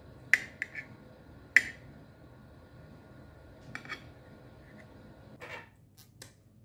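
Metal knife clinking and tapping against a plate while cutting through a soft baked cake: a handful of sharp clinks, the loudest about one and a half seconds in, and a short scrape near the end.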